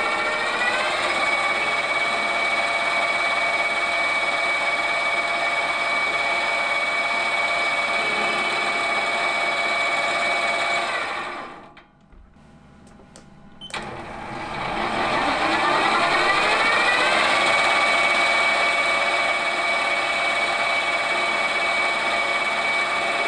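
Small metal lathe running with a steady whine as it turns a silver steel shaft. About eleven seconds in it winds down and stops, with a few faint clicks during the pause. About two seconds later it starts again, the whine rising in pitch as it spins back up to speed.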